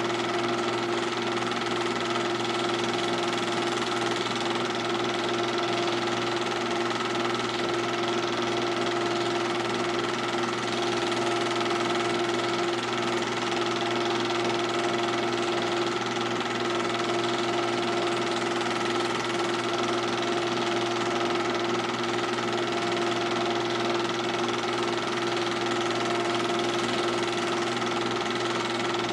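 Steady whirring and clatter of a film projector running, with a constant hum and an even level throughout.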